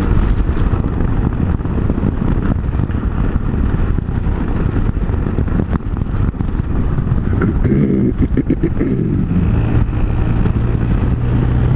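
Motorcycle engine running while the bike is ridden along the road, with a dense low rumble throughout. In the last couple of seconds the engine settles into a steady note.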